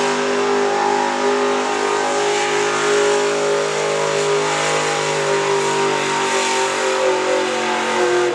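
Pickup truck's gasoline engine held at high, steady revs as the truck drags a weight-transfer pulling sled, the note sagging slightly late on before cutting off suddenly at the end.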